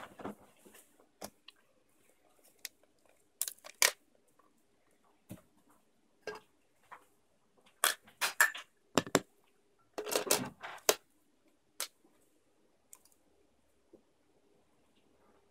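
Handling sounds of a Canon EF 35mm f/1.4L lens being unpacked and fitted to a DSLR: scattered clicks, taps and short crinkly rustles, with the busiest stretches about 4, 8 and 10 seconds in.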